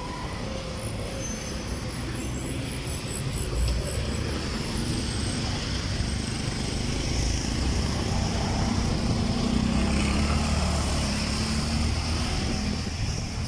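Steady road-traffic noise: a low rumble of passing vehicles that swells and eases.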